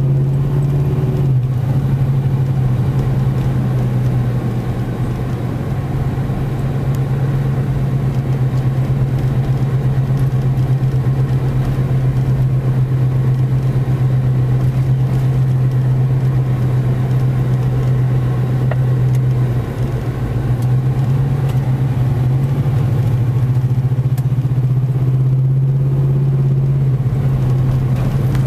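Car engine and road noise heard from inside the cabin while driving slowly along a street: a steady low drone that dips briefly about twenty seconds in and shifts pitch a little near the end.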